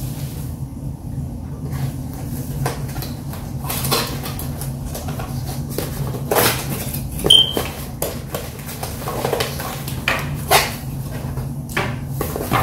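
Cardboard packaging being handled as accessories are taken out of a camera box: rustling, scraping and a few light knocks at irregular moments, with a brief squeak about seven seconds in, over a steady low hum.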